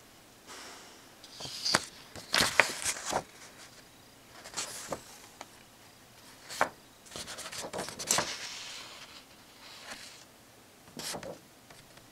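Pages of a paper instruction booklet being handled and turned: several bursts of paper rustling and crinkling with sharp flicks, the loudest about two to three seconds in.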